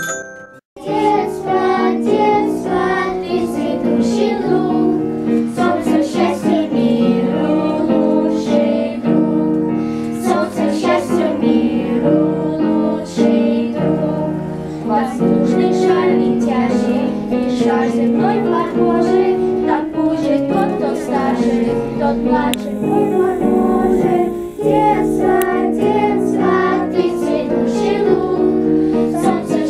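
A group of children singing a song together, accompanied by an electronic keyboard; the singing starts about a second in.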